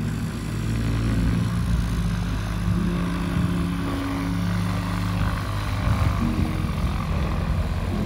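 Avid Flyer Mk4 light aircraft's engine and propeller running at low power as the plane taxis along the runway: a steady low drone whose pitch shifts slightly every second or two.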